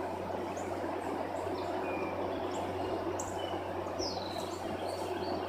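Outdoor ambience: a steady low hum and background noise, with a few short bird chirps, one a quick falling call about four seconds in.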